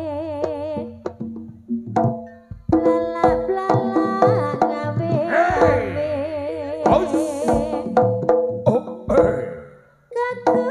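Live Javanese jaranan music: kendang hand-drum strokes under a wavering sung or played melody. It drops briefly almost to silence near the end, then comes back.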